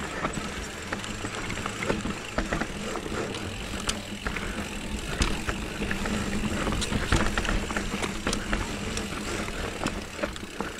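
Electric mountain bike riding down an off-road trail: steady tyre rumble and wind noise on a GoPro's microphone, with frequent sharp clicks and rattles from the bike over bumps.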